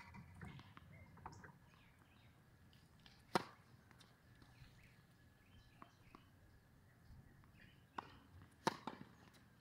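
Tennis ball struck by a racket: short, sharp pops, a loud one a little over three seconds in and a serve near the end, over faint outdoor background noise.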